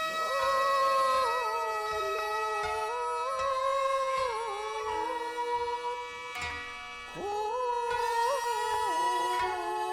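Kibigaku, traditional Japanese wind ensemble music: a wavering, sliding wind melody over steady held chord tones. The melody drops back briefly about six seconds in and returns a second later.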